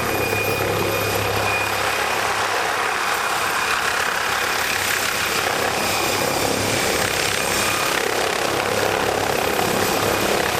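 Helicopter running: a steady, unbroken engine and rotor noise with a faint low hum.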